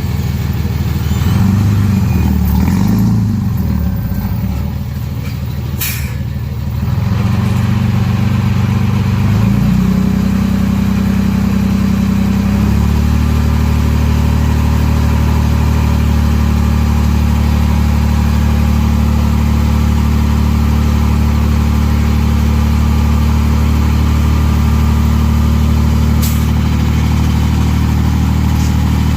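Diesel engine of a Mitsubishi BD2F bulldozer working, its speed rising and falling for the first several seconds, then holding steady from about thirteen seconds in. There are two sharp clicks, one about six seconds in and one near the end.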